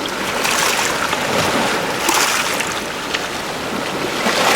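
Sea waves washing onto the shore, the hiss of the surf swelling and ebbing about every two seconds.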